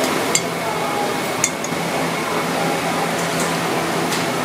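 Light metal clinks of a utensil against a metal bowl and pan, the two clearest about a third of a second and a second and a half in. Under them runs a steady kitchen hum and hiss.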